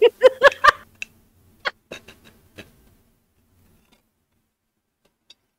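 A woman laughing: a quick run of high, pitched laughs in the first second, then a few short breathy giggles that die away by about three seconds in.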